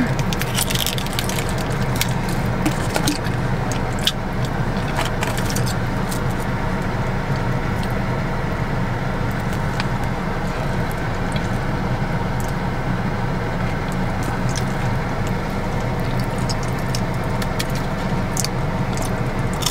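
Steady hum of a car idling, heard from inside the cabin, with scattered small clicks and crinkles as a plastic dipping-sauce cup is peeled open and handled.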